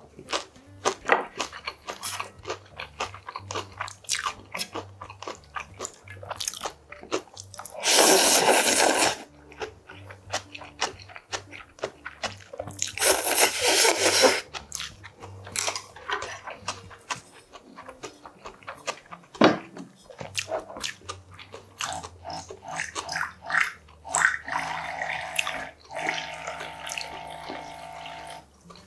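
Close-up eating sounds: chewing and small clicks, with two long loud slurps of cold naengmyeon noodles about eight and thirteen seconds in. Near the end, an electric soju dispenser's small pump whirs steadily for a few seconds as it pours a shot.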